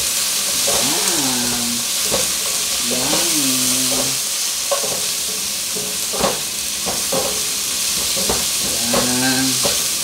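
Shrimp sautéing with meatballs, garlic and onion in a nonstick pot, a steady sizzle under a silicone spatula that stirs and knocks against the pot every couple of seconds. Three short pitched sounds, each rising, then falling and holding, come about a second in, about three seconds in and near the end.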